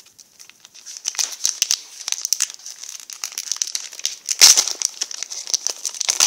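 Foil Pokémon trading card booster pack wrapper crinkling and being torn open by hand, with the loudest rip about four and a half seconds in.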